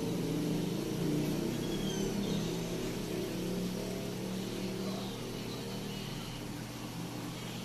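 A motor vehicle's engine running, its pitch wavering, then fading away after about five seconds, over a steady low hum.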